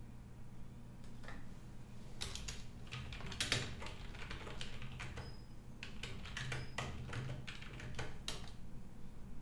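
Typing on a computer keyboard: a run of uneven key clicks that starts about a second in and stops shortly before the end.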